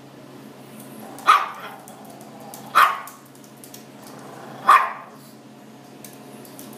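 Chihuahua mix barking three times, short sharp barks spaced a second and a half to two seconds apart.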